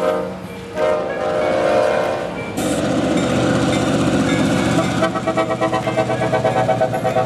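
CSX freight locomotive's air horn sounding a chord for about two and a half seconds. The locomotive then passes close, with a loud rush of engine and wheel noise. From about five seconds in, a pulsing tone rides over it.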